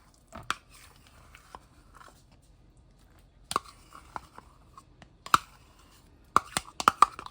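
A spoon scraping and clicking against a container while mayonnaise is scooped out, in scattered short knocks with a quick cluster near the end.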